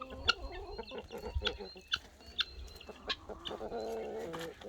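A flock of hens clucking, many short clucks and chirps, with one longer drawn-out call about three and a half seconds in.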